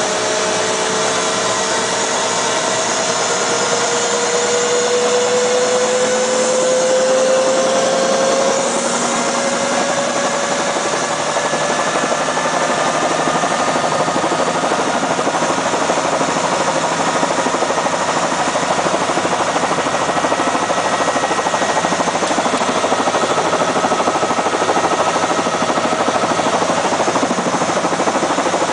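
Helicopter engine and rotor running loud and steady, with a whine that rises slowly in pitch over the first several seconds and then holds.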